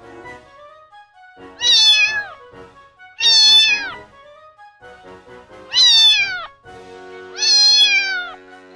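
A small kitten meowing four times. The calls are high-pitched, each lasts under a second, and each falls in pitch at the end.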